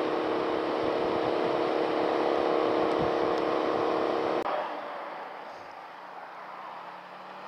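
Motorcycle cruising at highway speed: wind rush with a steady engine drone. About four and a half seconds in, the sound drops abruptly to a quieter, lower motorcycle engine hum at slower road speed.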